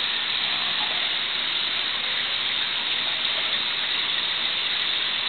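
Steady rushing hiss of aquarium water circulation, even and unbroken.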